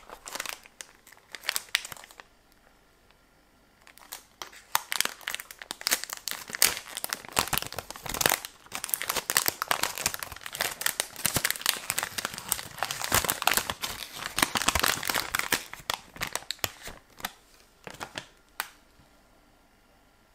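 Metallic gold foil snack wrapper crinkling as it is handled and torn open. A short burst of crinkles comes first, then after a pause of about two seconds dense crinkling and tearing runs for about twelve seconds before tapering off to a few last rustles.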